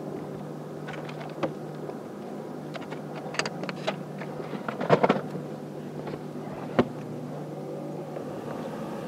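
Gear being handled in a bass boat's deck storage compartment: scattered knocks and clicks of hard items being moved, loudest in a cluster about five seconds in and a sharp knock near seven seconds, over a steady low hum.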